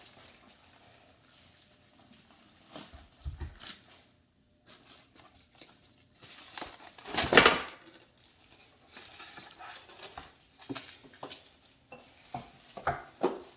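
Meat grinder parts being unpacked and handled: plastic wrapping rustling, with scattered clinks and knocks of metal parts being set down, loudest about seven seconds in.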